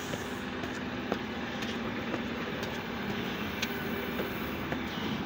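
Steady railway running noise, most likely a suburban electric train, with a low hum and light regular clicks about twice a second.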